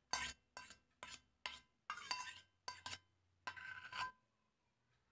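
Steel spoon scraping melted butter out of a small stainless-steel bowl. There are about seven short scrapes of metal on metal, the last one longer, and they stop about four seconds in.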